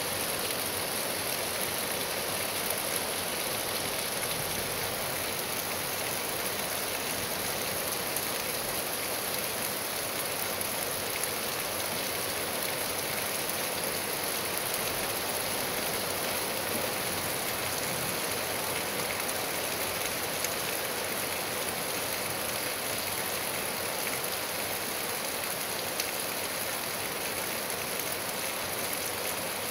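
Steady rain falling on trees and grass: an even hiss, with a few sharper drip ticks here and there.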